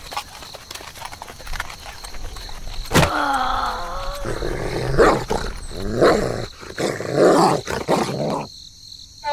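Dog barking: scattered light scratching clicks at first, then from about three seconds in a long call with wavering pitch followed by several shorter barks, stopping suddenly near the end.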